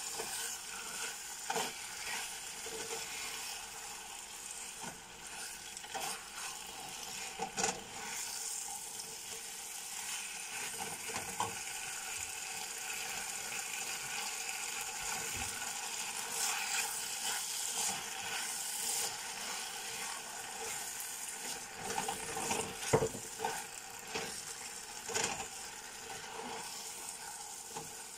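Beef strips and sliced vegetables sizzling steadily in a Kobach fry pan while a spatula stirs and tosses them, with now and then a scrape or knock of the spatula against the pan, the sharpest a little past two-thirds through.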